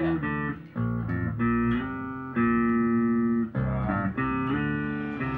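Guitar playing a slow phrase of ringing notes and chords that change about once a second.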